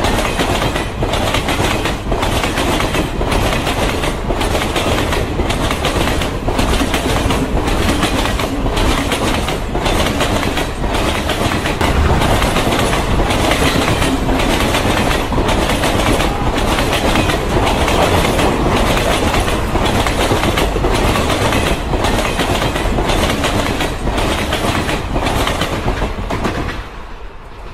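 Freight train of tank wagons passing a level crossing at close range: a loud, steady rumble and clatter of wheels, with a regular beat of wheelsets over rail joints. It dies away near the end as the train clears the crossing.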